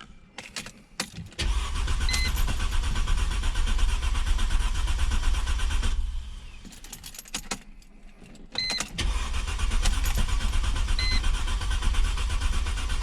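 Mercedes-Benz C240's starter cranking the M112 2.6-litre V6 in two attempts of about five seconds each with a pause between, the engine not catching: a cranks-but-no-start condition after a burnt ignition-coil fuse was replaced. Short electronic beeps sound three times during the cranking.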